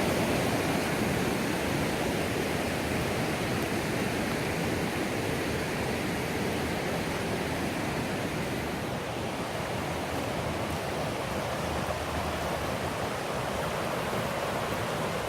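Millstone River water rushing steadily, easing off slightly toward the end.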